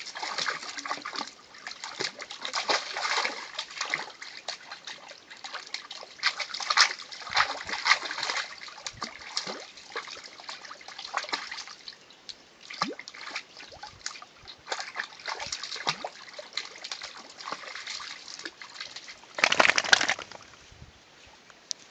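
Two Vizsla dogs splashing and sloshing through shallow water running down a rock channel, in irregular splashes over a steady trickle of flowing water. A louder burst of noise comes near the end.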